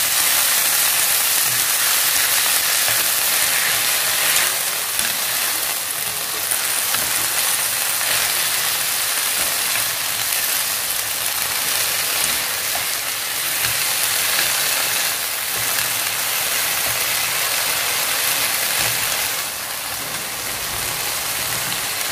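Blanched sweet potato leaves and garlic sizzling in hot oil in a wok as they are tossed quickly with chopsticks: a steady frying hiss.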